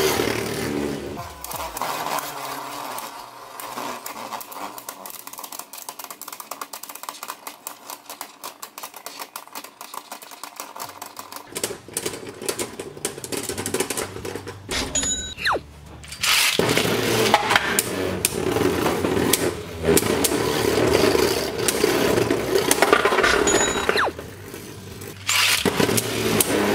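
Two Beyblade Burst tops, World Fafnir and Glide Satan, spinning and clashing in a plastic stadium: a fast stream of clicks and rattles as they scrape the stadium floor and knock into each other. The rattling is quieter for a stretch early on, then much louder from about halfway in.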